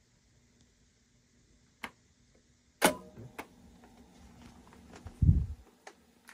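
Mechanical clicks from handling a cassette tape deck: a single click about two seconds in, a louder sharp click a second later, and a short low thump a little after five seconds.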